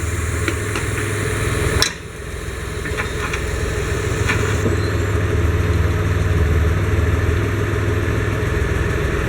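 Mitsubishi Pajero II engine idling steadily while its Up&Down hydraulic suspension is lowered. A sharp click comes a little under two seconds in, the sound drops suddenly, then builds back up over the next few seconds.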